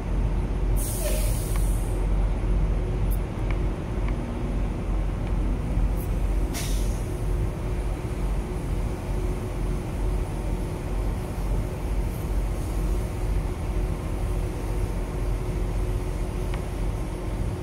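Steady low rumble of an idling diesel semi-truck, with two short air-brake hisses, one about a second in and another about six and a half seconds in.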